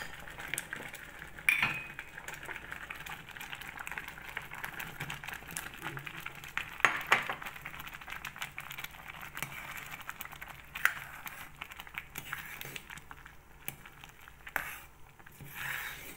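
A pot of water boiling, with a metal spoon clinking and scraping against a bowl and the pot as chunks of sweet potato are dropped in and stirred; several sharp clinks stand out above the steady bubbling.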